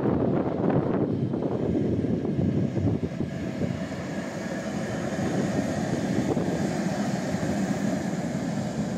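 Tatra KT8D5 articulated tram approaching and passing close by: a steady rumble of steel wheels on the rails, with a faint high electric whine above it.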